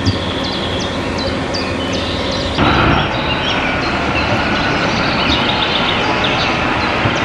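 Steady mechanical running noise of railcars standing at a station, with birds chirping in short repeated calls at first. About two and a half seconds in the sound becomes suddenly louder and fuller, and a faint steady hum runs under it.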